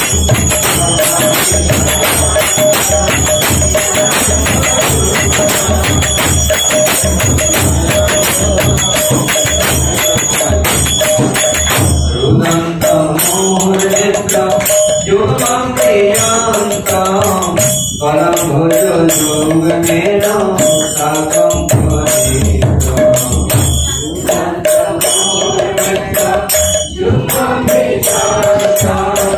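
Devotional kirtan music: a steady drum beat with dense jingling hand percussion, joined about twelve seconds in by voices singing a chant-like melody.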